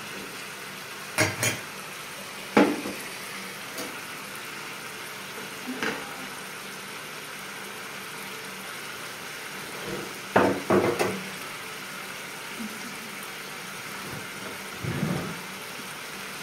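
A steel spoon clinking and scraping against a black iron kadai as meat curry with tomatoes is stirred, over a steady hiss. There are a few separate clinks early, a quick cluster of them about ten seconds in, and a duller knock near the end.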